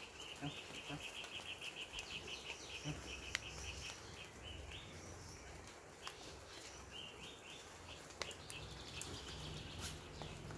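Rapid high chirping in the forest, a quick run of short notes about four to five a second for the first few seconds and again near the end. A few sharp clicks and rustles of camping gear being handled.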